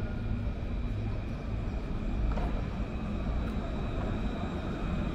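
Low-floor electric tram (Alstom Citadis) approaching along street track: a steady low rumble with a thin, steady high whine above it.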